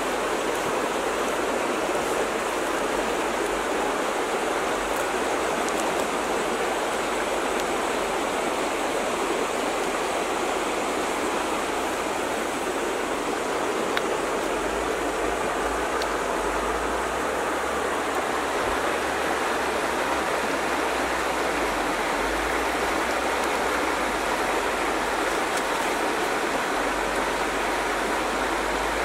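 Steady rushing noise like running water, even and unchanging.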